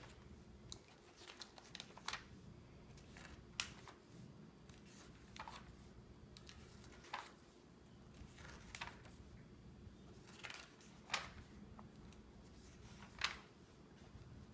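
Glossy catalog pages being turned by hand: a crisp paper flick or rustle every second or two, about eight in all, with faint sliding of the hand on the paper between them.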